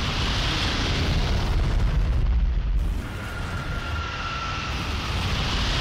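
A continuous low rumble, like a fire or explosion sound effect, with a faint high whine over it. It eases about halfway through, then swells again.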